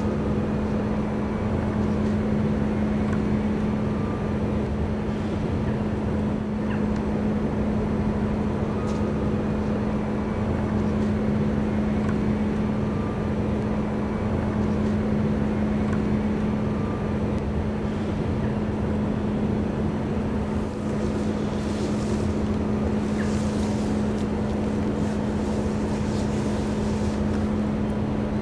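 Ship diesel engines running with a steady low drone and a constant hum that does not change pitch.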